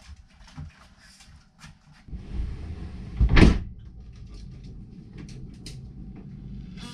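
Faint light clicks, then from about two seconds in a steady low hum, with a single loud knock or thump about three and a half seconds in.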